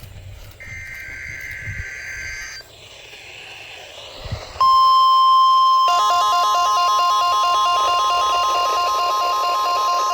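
NOAA Weather Radio weekly test received over a weather radio. A two-tone SAME data burst plays for about two seconds, then static. About four and a half seconds in, the steady 1050 Hz warning alarm tone comes on loud, and a second station's signal mixes in over it a second or so later.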